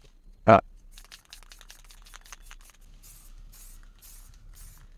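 Aerosol spray can of clear lacquer rattling and hissing in many short bursts, quieter than the rest of the soundtrack. A brief loud vocal sound comes about half a second in.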